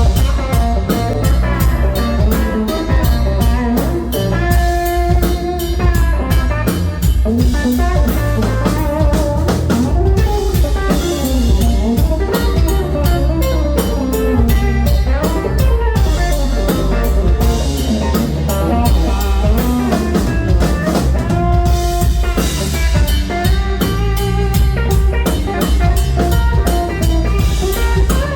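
A band playing an instrumental blues-rock number on a drum kit, bass and electric Telecaster guitar, with the guitar lines over a steady drum beat.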